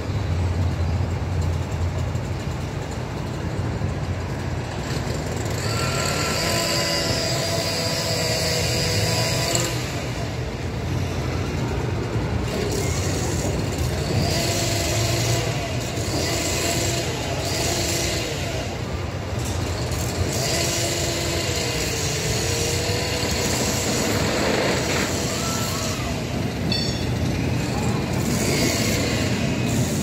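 Construction machinery running on a building site: a steady engine rumble, with higher whining tones that come and go.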